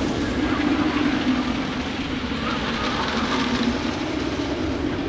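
Wooden roller coaster train running along its wooden track, a steady rumble with a low hum that fades near the end.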